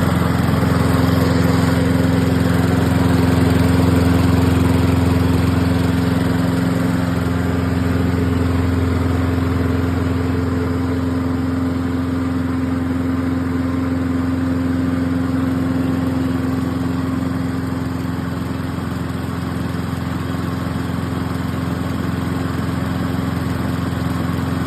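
Toro walk-behind lawn mower's small engine running steadily, on a replacement carburetor and a new spark plug. It runs evenly, easing slightly about two-thirds of the way through.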